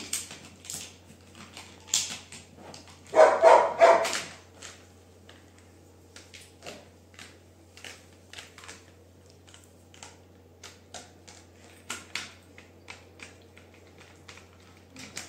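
Labrador chewing a hard plastic toy gun: irregular sharp clicks and crunches of teeth on plastic, with a short burst of vocal sound about three seconds in.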